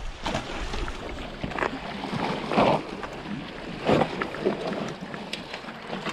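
Sea water washing against seaweed-covered shore rocks, with wind on the microphone. A few short knocks and scuffs are mixed in; two louder ones come about two and a half and four seconds in.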